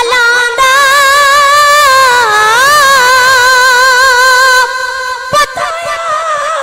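A boy singing a naat unaccompanied into a microphone, holding one long note with a wavering pitch for about four seconds, then singing more quietly near the end. A brief click comes about five seconds in.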